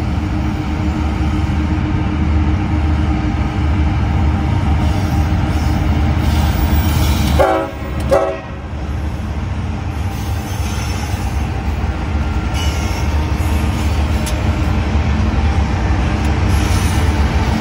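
Diesel locomotives at the head of a BNSF freight train passing close by, their engines running with a steady low drone. About seven seconds in, the locomotive horn gives two short blasts as the lead unit goes by.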